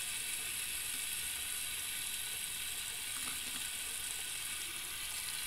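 Bathroom sink tap running steadily into the basin, an even, high hiss of water.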